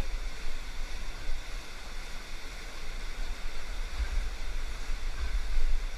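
Whitewater rushing through a boulder-choked river rapid: a steady, loud rush with a deep rumble underneath that surges and eases.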